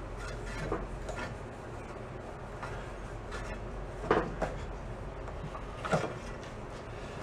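A few light clicks and knocks, spaced a second or more apart, from hands handling a small antique Briggs & Stratton engine that is not running.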